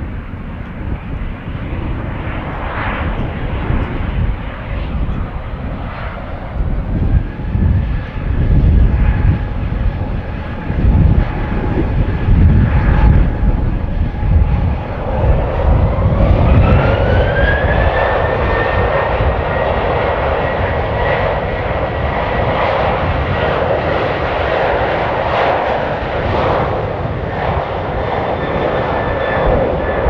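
Boeing 737-800's CFM56-7B turbofan engines whistling at low thrust on the runway, then spooling up to takeoff thrust about halfway through: the fan whine rises in pitch and holds steady and louder as the takeoff roll begins. Strong gusty wind rumbles on the microphone, mostly in the first half.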